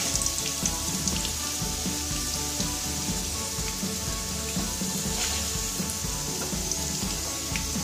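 Boiled baby potatoes sizzling in hot oil in a pan, a steady hiss with occasional light taps of a slotted spatula as they are lifted out.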